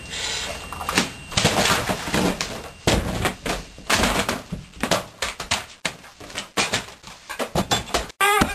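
Books and papers being shoved and flung off a wooden table: a dense run of irregular thuds, slaps and rustling. The sound cuts off abruptly near the end, and a brief voice follows.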